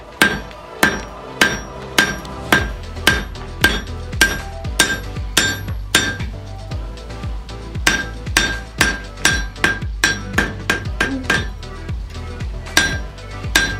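Blacksmith's hand hammer striking a red-hot iron bar on an anvil, each blow ringing. The blows come about two a second, pause about six seconds in, resume as a quicker run of lighter strikes, and a few more fall near the end.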